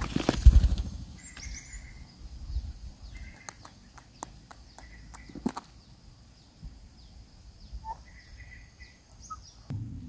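An adult kingfisher scuffles and flutters into the nest hole to feed a chick, a loud burst of rustling and thumps in the first second. The kingfisher chicks then give short buzzy calls a few times, with scattered small clicks and a faint steady high whine underneath.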